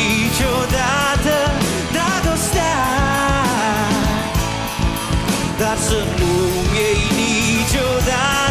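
Live rock band playing a ballad with drums and guitars, while a male lead singer sings long, sliding notes over the top.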